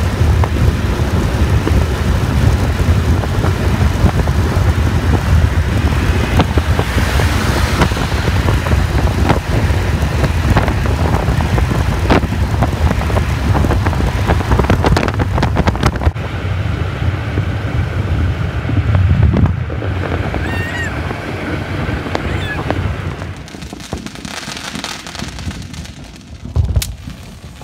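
Rushing wind on the microphone over the road noise of a car driving at speed, a steady loud roar with a heavy low rumble. It drops away about 23 seconds in.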